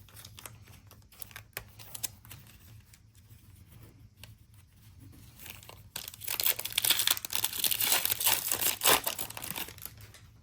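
A Panini NBA Hoops trading-card pack's wrapper being torn open and crinkling, loudest from about six seconds in until near the end; light clicks and rustles of handling before that.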